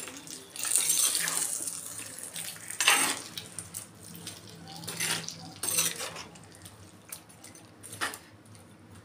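Metal spoon stirring a thick chicken curry in a clay pot, scraping and clinking against the pot's sides in uneven strokes as the tempering is mixed in; the sharpest clink comes about three seconds in.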